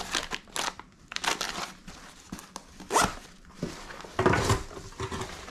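Handling noise from a nylon plate carrier being turned over and handled by hand: irregular rustling and scraping of the fabric with crinkling of card and packaging, loudest about three seconds in and again just after four seconds.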